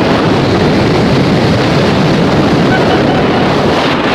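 Wind rushing over the microphone of a camera falling with a jumper in a fast cable-controlled descent: a loud, steady roar of air noise.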